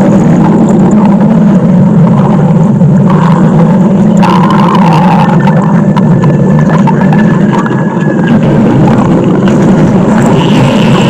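Loud stomach growl: a continuous low rumble that holds steady, with a brief higher gurgling tone about four seconds in.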